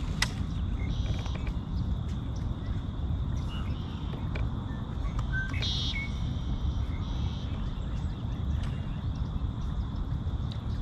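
Open-marsh ambience: several short high bird calls a second or two apart over a steady low rumble, with one sharp click just after the start.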